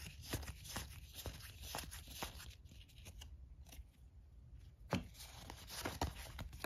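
Stiff paper game cards being fanned and sorted by hand: a run of light card clicks and slides, thinning out around the middle, with two sharper snaps near the end.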